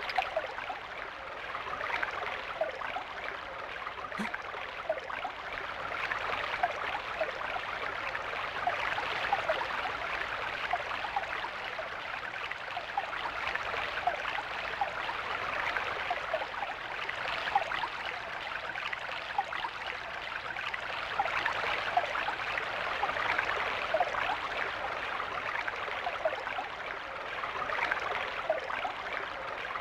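Flowing stream babbling steadily, with many small trickles and plinks of water.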